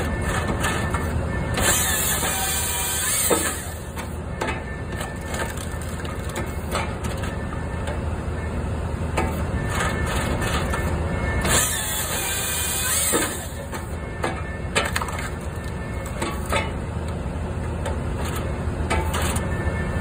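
Hahn HFP-160 skid-steer firewood processor working, the skid steer's engine humming steadily under the hydraulics with scattered knocks of wood. Twice, about ten seconds apart, a loud high hissing whine lasts about two seconds as the processor's saw cuts through the log.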